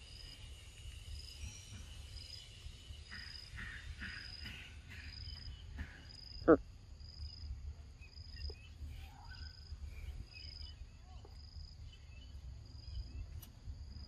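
An insect chirping in a steady high-pitched pulse, about two chirps a second, over a low outdoor rumble, with one sharp click about six and a half seconds in.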